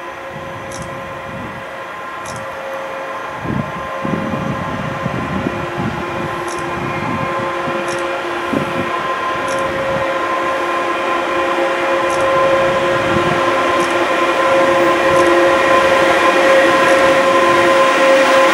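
Pesa Gama 111Ed electric locomotive hauling a freight train of steel coils as it approaches. It gives a steady whine of several tones over a rail rumble, growing steadily louder as it draws near.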